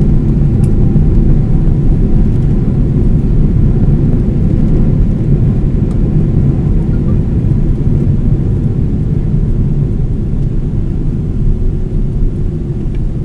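Cabin noise of a Boeing 777-300ER rolling on the ground after landing: a loud, steady low rumble of engines and wheels that eases slightly toward the end.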